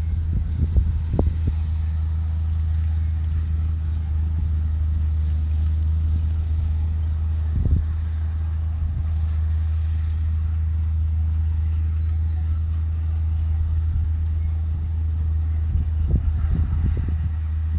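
Heavy diesel engine of earthmoving machinery running steadily at a low, even pitch, with a few short clanks: one about a second in, one near the middle, and a cluster near the end.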